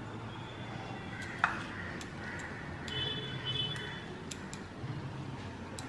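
Quiet handling sounds: scattered small clicks and taps as raw graham cracker dough pieces are lifted off a silicone baking mat and laid on a metal baking tray, with one sharper click about one and a half seconds in and a brief faint ringing around three seconds in.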